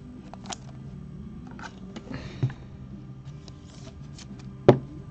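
Thick baseball trading cards handled and slid against one another, with light clicks and a brief rustle. A single sharp tap near the end is the loudest sound.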